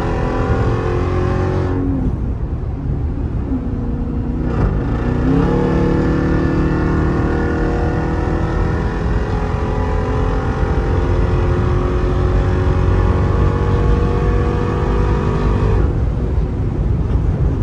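Jeep Grand Cherokee Trackhawk's supercharged 6.2-litre V8 accelerating hard, its revs falling at gear shifts about two and four and a half seconds in. After that comes a long steady pull, and the revs fall again at another shift near the end.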